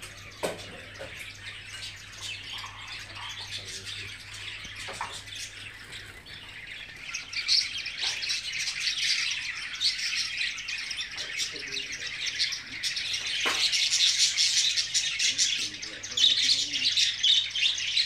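Many caged birds chirping in a pet shop: a dense, continuous high chatter that grows louder about seven seconds in.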